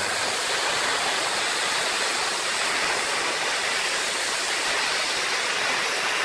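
A pulling tractor running at full throttle down the track, heard from the stands as a steady rushing roar with no clear engine note.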